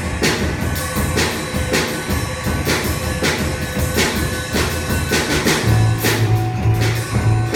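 Robot band playing music: a steady percussion beat of about two strikes a second, with a low bass line coming in about six seconds in.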